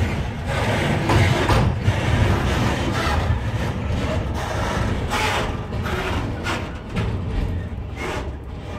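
Freight wagons rolling slowly past on the rails, with a low rumble and irregular clicks and clatter from the wheels. The sound eases off near the end as the tail of the train goes by.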